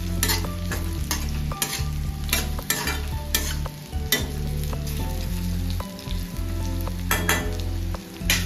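Chopped vegetables stir-frying in hot oil in a kadai, sizzling steadily, while a spatula stirs and scrapes against the pan in irregular strokes.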